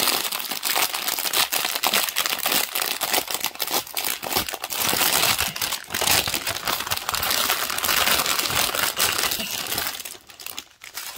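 Clear plastic bags of diamond painting drills crinkling and rustling as they are handled and shuffled through, with many small irregular crackles. The crinkling dies down briefly near the end.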